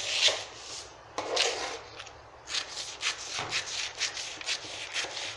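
Scissors cutting through kraft pattern paper: a run of short, crisp snips, with the stiff paper crackling and rustling as it is handled and smoothed flat.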